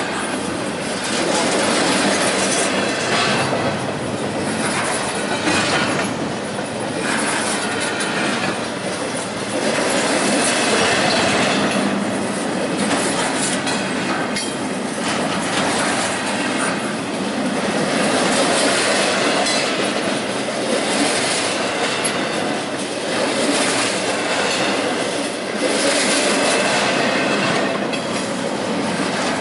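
Freight train of empty double-stack intermodal well cars rolling past. The wheels rumble and rattle on the rails, with repeated clicks as the trucks cross rail joints, and the sound swells every few seconds as each truck goes by.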